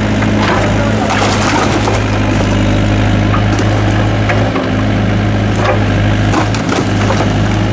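Doosan DX55W wheeled excavator's diesel engine running steadily while its bucket pushes over a brick wall, with bricks and mortar cracking and clattering down in a string of sharp knocks.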